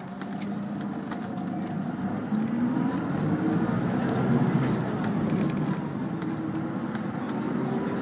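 Bus engine heard from inside the passenger cabin, getting louder as the bus gathers speed, its pitch rising and dipping a few times.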